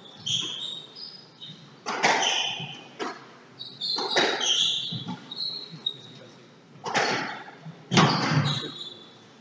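Squash rally: the ball is struck by rackets and smacks off the court walls in a string of sharp, echoing hits about a second apart, with short high squeaks from court shoes on the wooden floor. The loudest hits come near the end.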